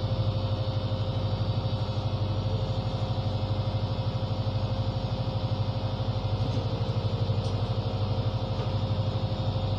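Ship's engine running steadily: a low, even drone with a fast regular pulse and a faint steady higher tone over it.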